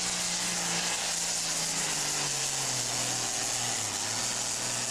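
John Deere super farm pulling tractor's turbocharged diesel engine running flat out under the sled, with a loud high hiss over the engine note. Its pitch sags about two seconds in and again near the end as the sled load builds.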